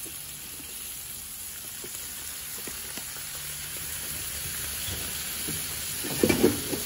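Water squirted onto a hot steel griddle sizzling and steaming steadily beside chopped beef and cheese. A few sharp metal clatters come near the end.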